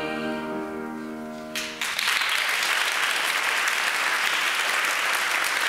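A choir of singers holds a final chord that fades away; a little under two seconds in, an audience breaks into steady applause, which is the loudest sound.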